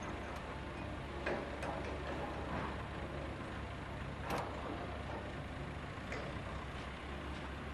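Steady low engine hum of site machinery, with a few sharp metallic clicks from the sheet pile threader's steel vise being handled. The loudest click comes a little past four seconds in.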